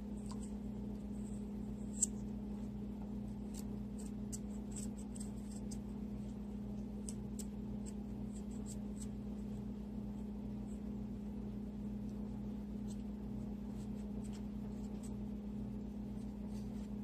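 Faint, crisp ticks and scrapes of a small knife shaving the skin off a raw carrot, with one sharper click about two seconds in, over a steady low hum.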